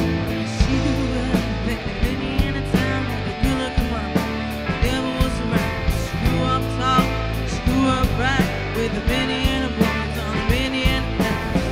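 Live rock band playing: a singer's voice over electric guitar, bass and a steady drum beat.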